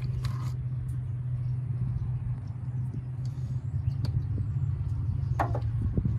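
A steady low hum, with a few faint clicks from a headlight bulb and its wiring connector being handled.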